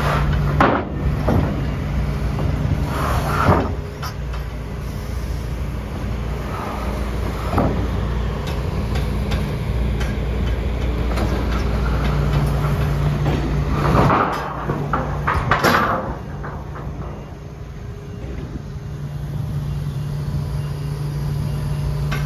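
Hitachi ZX160LC-7 tracked excavator's diesel engine running steadily, with several sharp clanks and knocks as its fork attachment picks up and sets down stacked plates.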